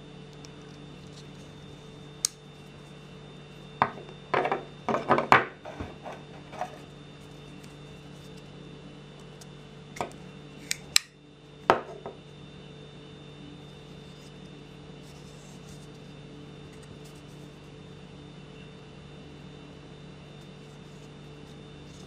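Sanrenmu GB-704 folding knife being worked by hand: metal clicks and snaps as its blade and tools are folded and locked. There is a burst of rattling clicks about four to six seconds in, then a few sharp clicks around ten to twelve seconds.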